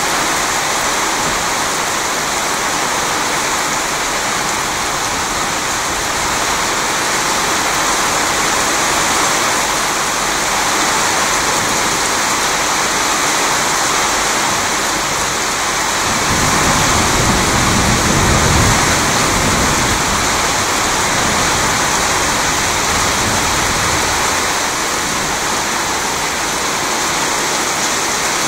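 Steady rain of a thunderstorm, with a low rumble of thunder swelling a little past halfway through and dying away over about five seconds.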